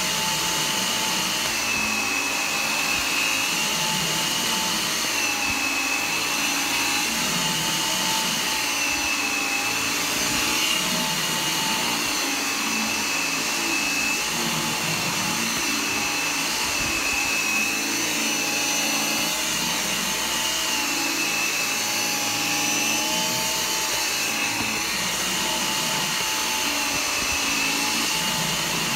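G-Tech Air Ram 2 cordless upright vacuum cleaner running continuously over carpet, its high motor whine wavering slightly in pitch as it works.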